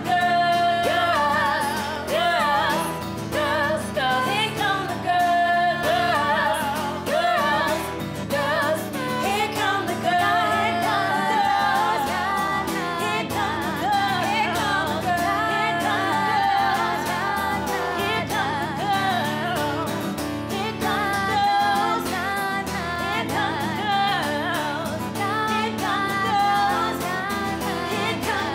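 Female vocal group singing together with acoustic guitar accompaniment, a live acoustic performance of a pop song.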